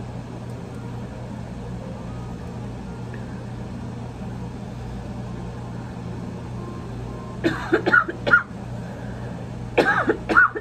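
A woman coughing in two fits, brought on by bong smoke: a short bout about seven and a half seconds in, then a longer one near the end. A steady low hum runs underneath.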